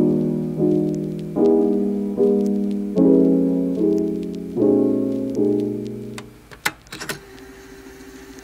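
Background lo-fi piano music: soft chords struck about every second. They die away about six seconds in, followed by a few soft knocks and a quiet held tone.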